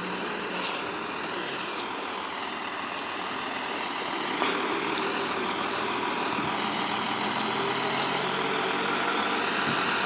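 Farm tractor's diesel engine running steadily, slowly growing louder, with a single knock a little before the middle.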